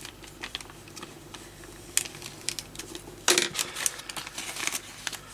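Clear plastic kit parts on their sprue being handled: scattered light plastic clicks and taps, with a quick run of them about three seconds in.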